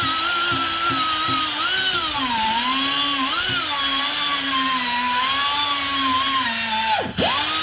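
Handheld power tool scouring rust off a steel wheel-bearing spindle, its motor whine dipping and wavering in pitch as it bears on the metal. It cuts off briefly about seven seconds in and spins straight back up to speed.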